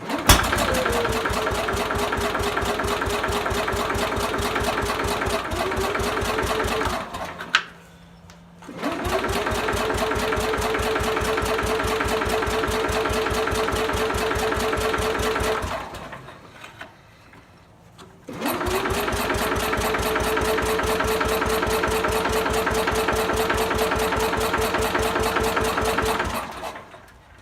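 1968 Sears Super 12 garden tractor's engine being cranked by its electric starter, three long attempts of about seven seconds each, the starter whine spinning up and then holding steady before cutting off, without the engine catching: a cold hard start.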